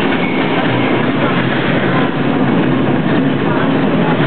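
Steady running noise of an open tram rolling on its rails, heard from on board, with faint voices in the background.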